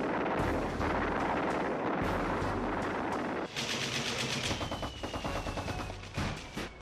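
Battle sound effect of gunfire: a dense continuous din for the first half, then rapid machine-gun fire from about halfway, with a thin whistle falling in pitch near the end.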